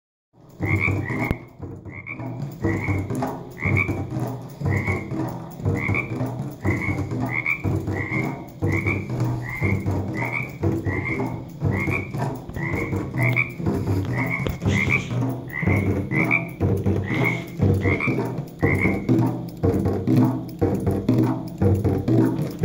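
A frog calls over and over, about one to one and a half short calls a second, each rising slightly; the calls stop a few seconds before the end. Beneath them, water-driven rain drums keep up an uneven, low drumming.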